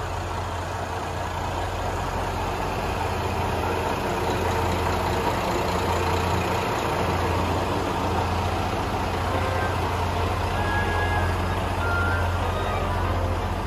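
Bus engine running steadily: a constant low hum under a wash of road and ambient noise.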